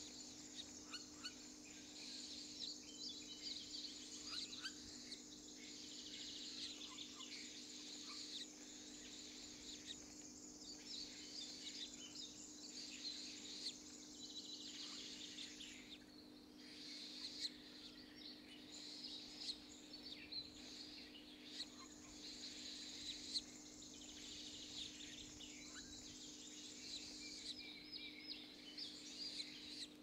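Faint woodland ambience: a steady high-pitched chirring, with scattered short bird chirps over it. The chirring drops out briefly around the middle and again near the end.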